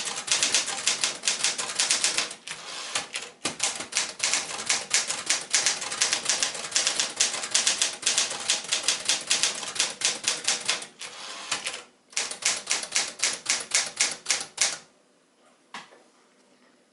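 1965 Sears Forecast 12 manual typewriter, a Smith-Corona Galaxie variant, being typed on quickly: a fast, even run of keystroke clacks with a few brief pauses. The typing stops about two seconds before the end.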